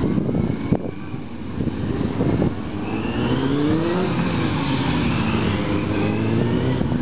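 Motorcycle engine working through a slow cone-weaving course, revving up and down with the throttle: the pitch climbs about three seconds in, then drops back and holds steady.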